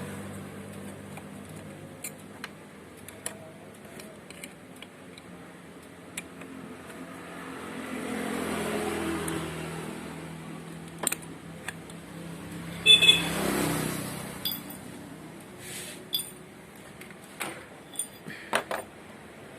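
Small metallic clicks, taps and clinks of tools and carburetor parts being handled as a Yamaha Mio scooter's carburetor vacuum chamber is opened, one clink ringing briefly about two-thirds of the way in. Under them runs a steady low engine hum that swells twice.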